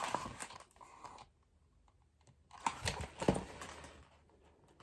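Faint paper rustling and a few light clicks and taps from a hardcover picture book being handled as its pages are turned, with a cluster of clicks about halfway through after a quiet second.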